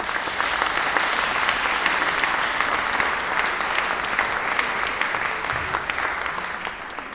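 Audience applauding, dense steady clapping that swells up right after the last note and tapers off near the end.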